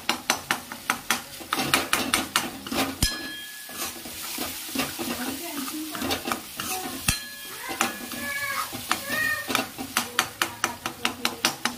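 Metal ladle scraping and knocking around an aluminium kadai as onion-tomato masala and spices are stirred and sautéed in oil, over a steady sizzle. Quick strokes about three a second at the start and near the end, slower in the middle, with two sharper ringing knocks of the ladle on the pan about three and seven seconds in.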